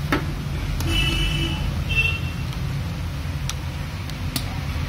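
Steady low rumble of road traffic, with a few sharp metal clicks as pliers press the lock onto a motorcycle kick-start boss.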